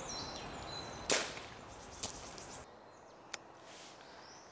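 A single shot from a moderated air rifle about a second in, a sharp crack with a short tail, followed about a second later by a fainter knock.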